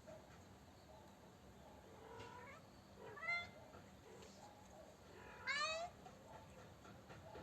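A kitten meowing: a faint mew about two seconds in, then two louder meows, the last one the longest.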